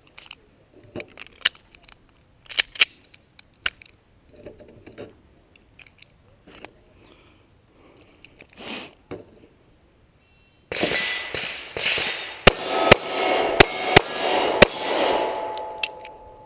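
Five pistol shots in quick succession, about half a second apart, from a Springfield Armory XDS .45 ACP compact pistol. They come over a steady rushing noise that starts abruptly about ten seconds in. Before that there are only scattered faint clicks and knocks.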